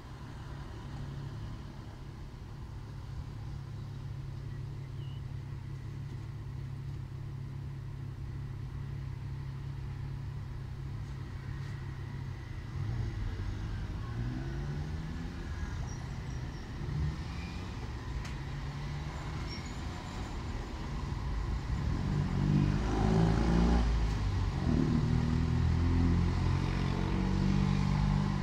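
City road traffic: a steady low hum of engines, with a vehicle speeding up about halfway through and a nearer one passing, loudest about two-thirds of the way in, its engine note carrying on to the end.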